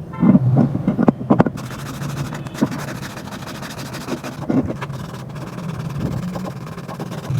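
A quick run of metal knocks and clatters in the first second or so, then a steady low machine hum.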